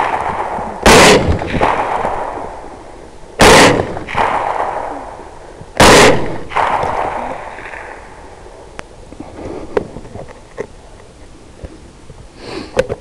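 Three rifle shots about two and a half seconds apart, each followed by an echo rolling back and dying away over a second or two.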